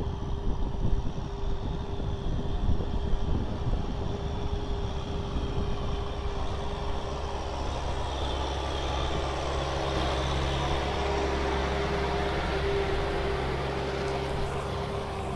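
Kubota M6040 SU tractor's four-cylinder diesel engine running steadily under load while it works a rotary tiller through wet paddy mud. The engine note becomes steadier and fuller about halfway through as the tractor comes close.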